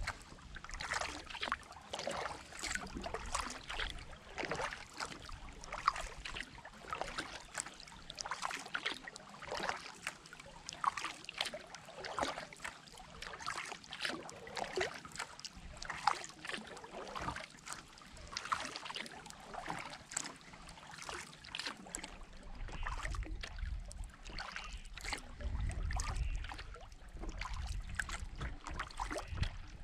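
Kayak paddling: water splashing and dripping off the paddle blades in a steady, irregular patter, with water trickling along the hull. A low rumble comes in over the last several seconds.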